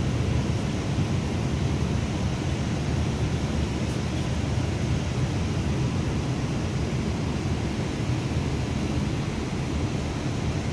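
Steady low rumble of a coach bus driving along, engine and road noise heard from inside the cabin.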